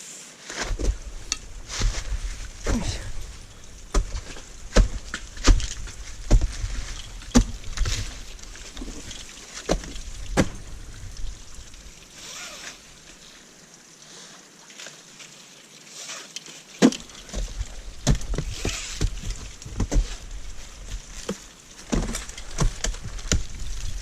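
Ice axe picks and crampon points striking into waterfall ice: sharp, irregular chopping and kicking blows with a low rumble underneath. They pause for a few seconds about halfway through, then start again.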